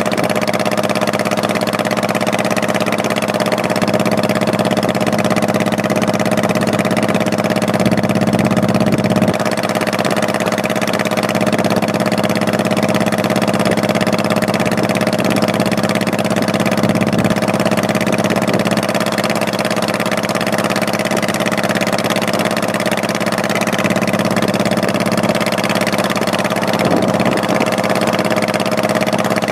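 Honda Shadow Spirit 1100's V-twin engine running steadily, its pitch holding level throughout.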